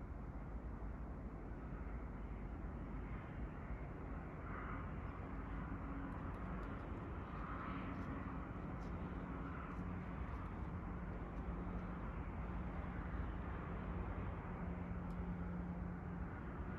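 Steady low outdoor rumble with a faint distant engine drone holding an even pitch through most of it.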